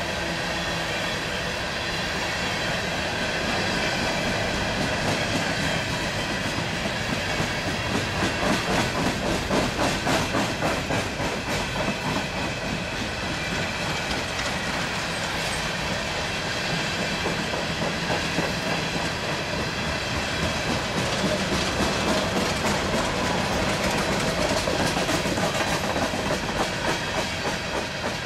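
Empty coal train's hopper cars rolling past, with a rapid, steady clickety-clack of wheels over the rail joints.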